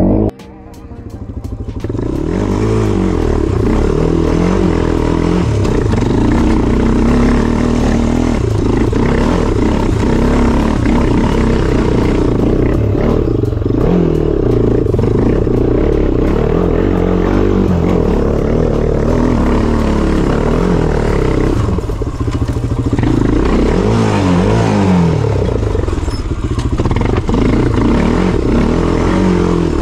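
Honda 400EX quad's single-cylinder four-stroke engine running hard as it is ridden off-road, its revs rising and falling again and again. The sound drops out for a moment right at the start and builds back within about two seconds.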